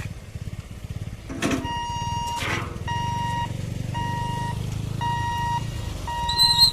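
Level crossing warning beeper sounding a steady electronic beep about once a second, louder from about two seconds in, over the low rumble of idling vehicle engines. Two short noisy bursts come between about one and a half and two and a half seconds in, and high chirps near the end.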